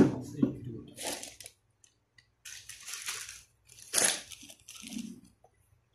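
Plastic handling noise: a sharp click at the start, then several short bursts of crinkling and rustling, the loudest about four seconds in, as the plastic toilet cistern and a plastic bag are handled.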